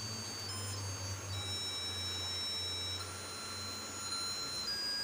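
A simple electronic melody of pure beeping tones, each note held about half a second to a second and a half, over a low steady hum.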